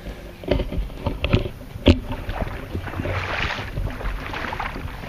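Water sloshing and splashing as someone wades through shallow creek water, with a few knocks and one sharp click about two seconds in, and wind on the microphone.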